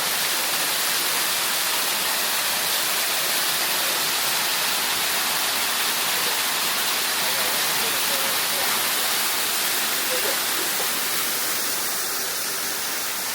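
Waterfall: a steady rush of falling, splashing water, a little quieter near the end.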